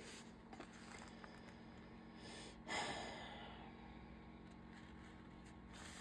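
Quiet room tone with one short breath out, a sigh, a little under three seconds in, fading over about a second.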